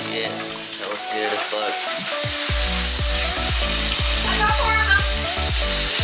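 Background music, with a steady bass beat that comes in about two seconds in, over a continuous hiss of mushrooms sizzling in a frying pan.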